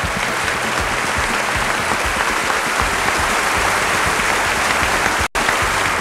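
Audience applauding steadily, with an instant's break about five seconds in.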